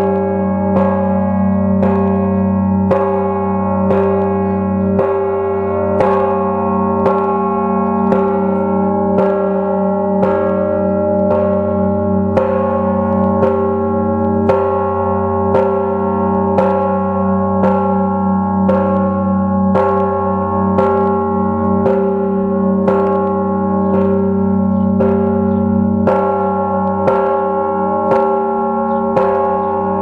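Orthodox monastery church bells ringing in a steady rhythmic peal. Smaller bells are struck a little more than once a second over the deep, long ringing of a large bell struck every two to three seconds.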